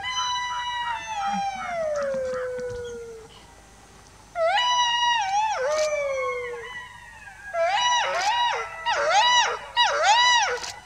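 Golden jackal howling: one long falling wail, then after a short pause a wavering howl, then a quick run of rising-and-falling yipping cries, about two a second, in the last few seconds.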